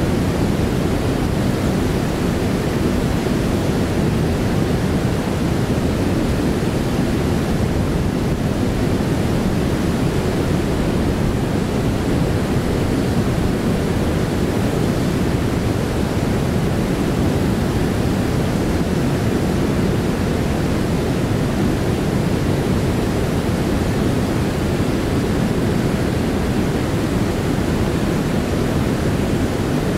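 Steady rush of river water tumbling over falls and rapids, an even, unbroken roar.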